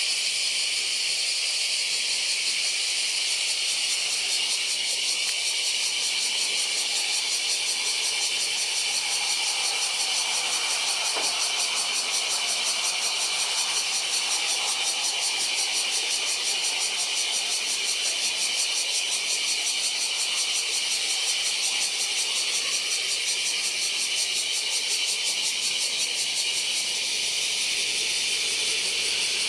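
A steady high buzzing hiss with a fast fine pulse is the loudest sound throughout. Under it is the faint, distant rumble of a climbing twin-turbofan Embraer airliner, which swells in the middle and then fades.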